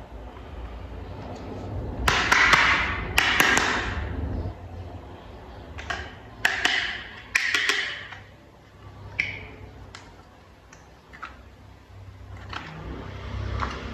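Small plastic toy parts being handled and clicked together, a run of taps, clicks and short clattering rustles in irregular clusters over a low steady hum.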